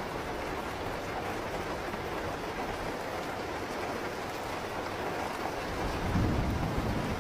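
Steady rain falling, with a low roll of thunder swelling up about six seconds in.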